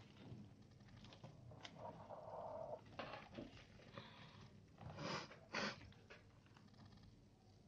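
Faint rustling and crinkling of a paper origami model being creased and folded by hand, with two short louder rustles about five seconds in.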